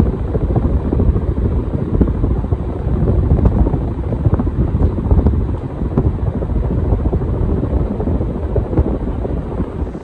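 Casablanca Spirit of Saturn ceiling fan running with four blades, its downdraft buffeting the microphone in a steady, rough, low whooshing rumble.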